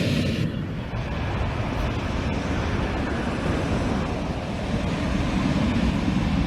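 Boeing 737-800 jet engines heard from outside. The high engine whine drops away about half a second in, leaving a steady low rumble and hiss as the aircraft moves off.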